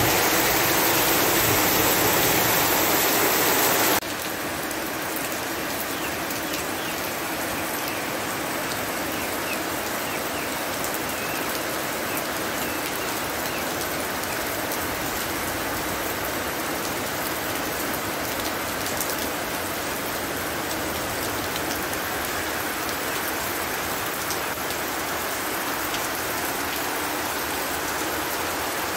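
Heavy rain falling steadily. About four seconds in it cuts suddenly to a quieter, even rain of drops striking water and ground.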